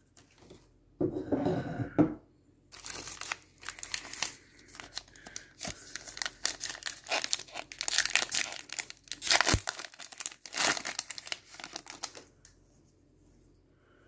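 Foil trading-card pack wrapper being torn open and crinkled by hand: a dense crackling that starts about three seconds in and stops near the end.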